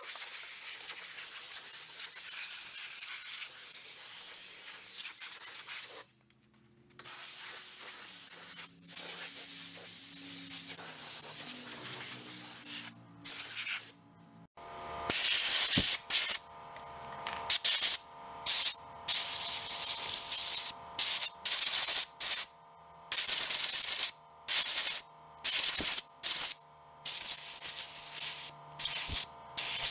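Compressed-air blow gun blasting debris off a lawn mower engine in long steady hisses, with a short break about six seconds in. Midway, after a cut, it changes to a run of short on-off blasts blowing out the mower's pleated paper air filter.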